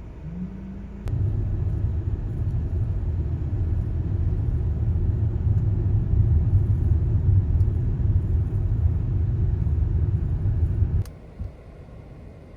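Low, steady rumble of a car on the move, heard from inside the cabin; it starts abruptly about a second in and cuts off near the end.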